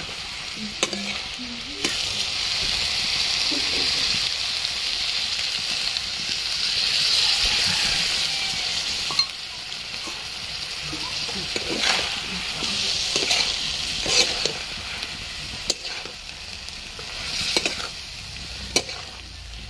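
Potatoes, tomatoes and small dried fish sizzling in a metal kadai, with a metal spatula stirring and scraping against the pan. The sizzle is strongest in the first half; after that come several separate scrapes of the spatula.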